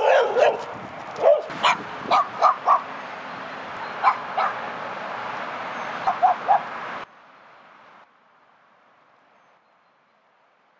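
A dog barking in short clusters of barks over a steady background hiss. About seven seconds in, the sound drops off abruptly to faint and then near silence.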